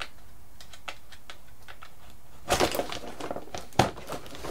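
Light clicks and taps of hands handling a foam RC biplane wing and its wing-locking pin, with a louder burst of rustling clicks about two and a half seconds in and a single sharp click about a second later.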